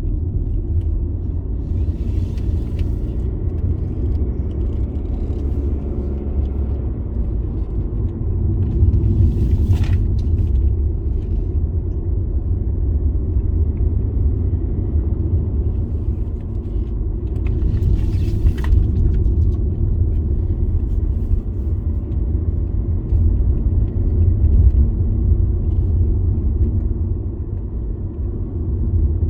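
A car driving, with a steady low rumble of road and engine noise. A few brief hissing sounds pass over it.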